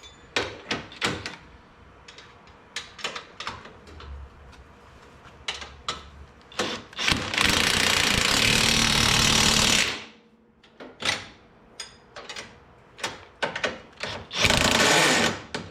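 Power tool, most likely an impact wrench, tightening suspension bolts in two loud runs: one of about three seconds midway and another starting near the end. Scattered clicks and knocks of hand tools on metal come between them.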